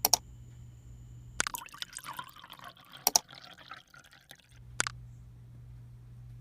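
A few sharp clinks of metal, with a stretch of dripping, splashing water between them, as the rusty steel wrench handle is handled for cleaning off its remaining corrosion.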